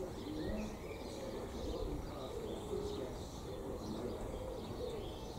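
A pigeon cooing in repeated low phrases, with faint chirps of small birds higher up.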